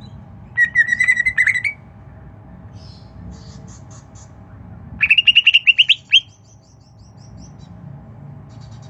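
Pet bird chirping in two quick bursts of rapid repeated chirps, the first about a second in and the second, higher and rising, about five seconds in, with faint chirps between.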